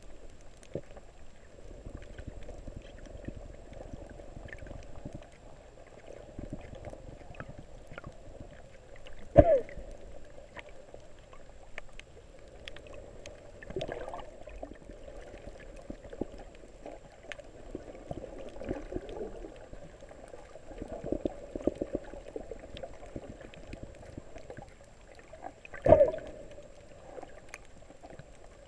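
Underwater sound heard through an action camera's waterproof housing while snorkeling over a coral reef: a muffled, steady water wash with faint scattered clicks. Two short, louder surges of water noise come about a third of the way in and again near the end.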